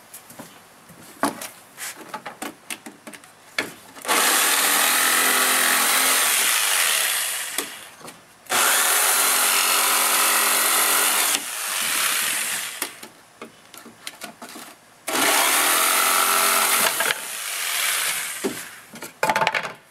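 Corded handheld jigsaw cutting through a sheet of plywood in three long runs, starting about four seconds in, with short pauses between them. In the gaps there are scattered knocks and clicks as the saw and board are handled.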